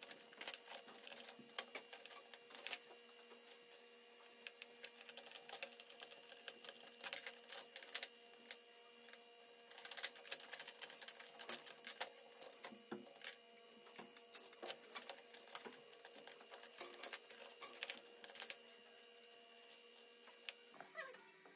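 Small metal fittings and a screwdriver clicking and clinking against a chrome bicycle handlebar as clamps are fitted and tightened by hand: quick, irregular clicks in clusters, over a faint steady hum.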